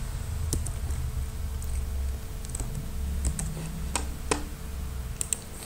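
Scattered sharp clicks of computer keys being pressed, about seven at irregular intervals, over a steady low rumble.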